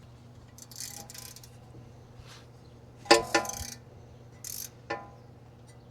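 Hand tools clanking on metal while the suspension is worked on. One loud, ringing metallic clank about three seconds in stands out among several lighter knocks and short scrapes, over a steady low hum.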